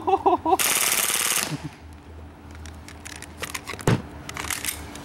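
A full-auto burst of under a second from a KWA ATP Auto gas blowback airsoft pistol, a rapid string of sharp cracks, just after a short pitched sound. Scattered light clicks follow, with a single low thump near the end.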